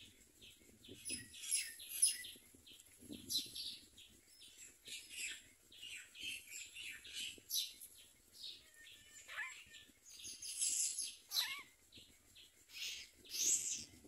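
Common myna nestlings begging: a run of short, high, rasping chirps, one after another, with a couple of longer sliding calls partway through as the parent arrives with food.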